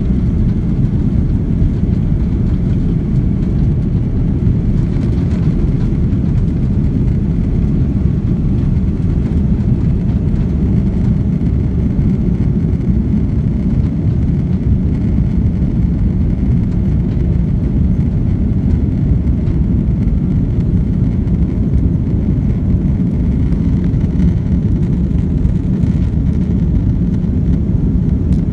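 Jet airliner cabin noise during takeoff: the engines at takeoff power and the rush of the takeoff run, heard from inside at a window seat as a steady, loud, low-pitched rumble that runs on unchanged into the climb.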